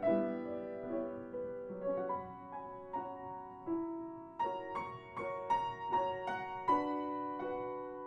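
Background piano music: a gentle melody of single struck notes over chords, each note fading after it is struck.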